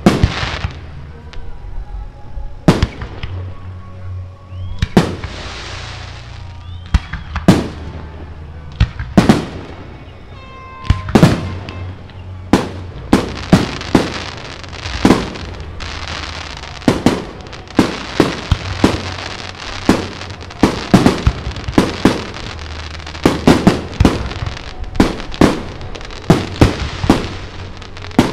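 Aerial fireworks shells bursting: a few separate booms at first, then bursts coming thick and fast from about eleven seconds in.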